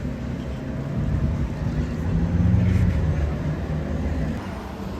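Hypercar engine running at low speed, its low note swelling and easing, loudest about halfway through.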